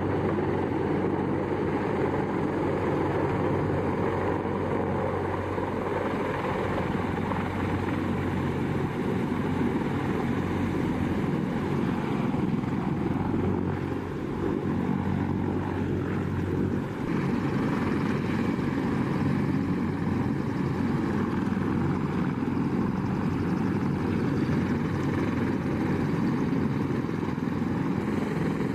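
A CH-53E Super Stallion heavy-lift helicopter's rotors and turbines running, a loud, steady throbbing roar as it flies low, lands in its own rotor-wash dust and sits with rotors turning.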